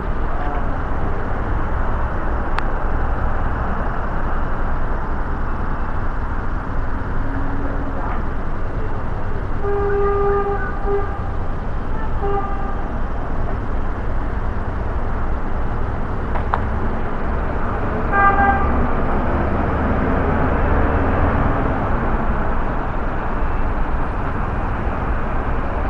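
City street traffic: a steady hum of traffic with car horns honking, one toot about ten seconds in followed by a shorter one, and a quick run of short beeps about eighteen seconds in.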